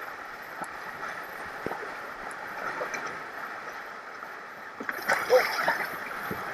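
Shallow river rapids rushing steadily around a kayak, with a louder burst of splashing about five seconds in as a person settles into the kayak in the current.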